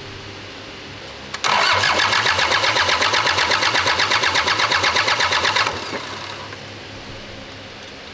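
Toyota Hilux diesel engine turned over by its starter motor for about four seconds with a rhythmic pulsing, then the starter stops without the engine catching. It cranks but won't fire because the injector pump's fuel shut-off solenoid was wired to the wrong pin.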